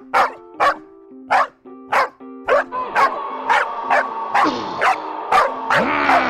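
A dog barking over and over, about two barks a second, with background music underneath.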